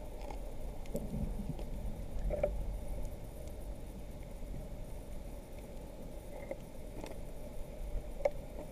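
Underwater ambience picked up by a camera below the surface: a low, muffled rumble of moving water with a steady hum, broken by a few scattered sharp clicks.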